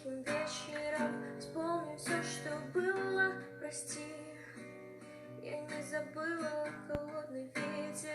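Music: a song's instrumental passage with strummed acoustic guitar.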